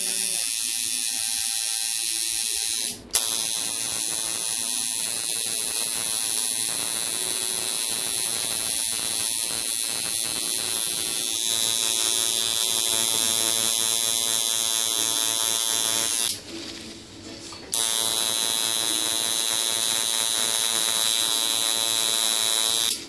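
Electric tattoo machine buzzing steadily while its needle works ink into skin. It stops for a moment about three seconds in and restarts with a sharp click, pauses for about a second and a half around sixteen seconds, and cuts off near the end.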